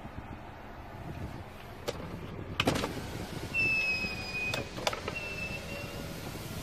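Kia K3's electric side-mirror motor whining in two short runs: one of about a second starting midway, then a shorter one near the end. Sharp clicks come before and between the runs.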